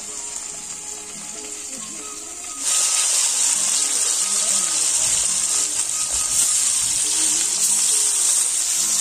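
Pieces of fish frying in hot oil in a wide metal wok, a steady sizzle that grows much louder about three seconds in.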